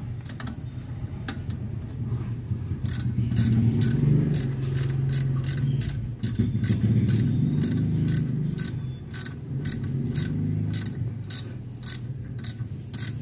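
Ratcheting combination wrench clicking as it runs a 14 mm nut onto a rear shock absorber mount, about two clicks a second from about three seconds in. A low hum runs underneath.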